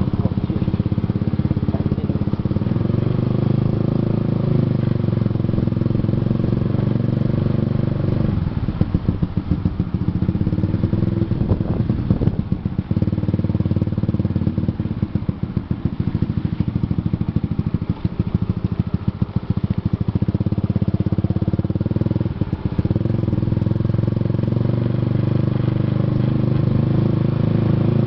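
Motorcycle engine running while riding. A steady engine hum changes to a lower, pulsing note after about eight seconds and holds it for several seconds. The hum then picks up again, dips briefly once more later on, and falls away near the end.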